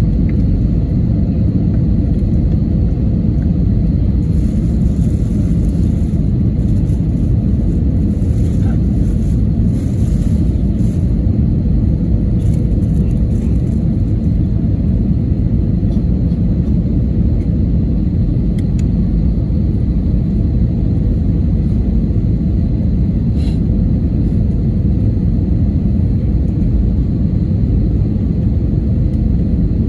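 Steady low rumble of engine and airflow noise heard inside the cabin of an Airbus A320 descending on approach, with a faint steady tone under it.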